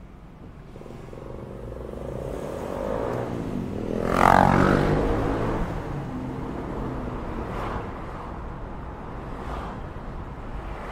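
A car driving on the road: engine and road rumble build up to a loud passing whoosh about four seconds in, with a pitched drone that drops in pitch as it passes, then steady road noise.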